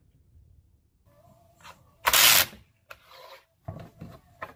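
Cartridges and a rifle magazine being handled on a plywood Podavach U-Loader: one short, loud scraping rush about two seconds in, then a few softer knocks and rubs.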